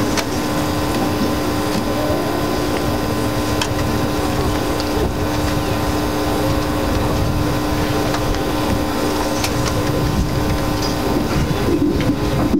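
Steady low rumble with a constant hum running under it.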